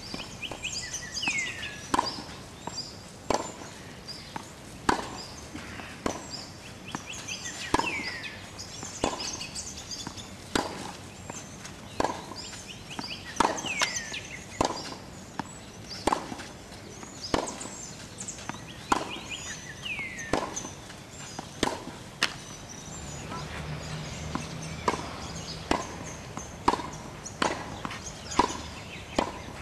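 Tennis balls struck by rackets in a rally on a clay court: a sharp pop about every second and a half, coming faster near the end as the exchange moves to volleys at the net. Birds sing throughout, with repeated falling whistled calls and high chirps.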